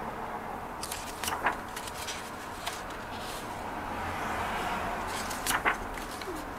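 Pages of a hardcover photobook being turned by hand: two page turns, each a brief paper rustle with a sharp flick, one about a second and a half in and one about five and a half seconds in, over steady background noise.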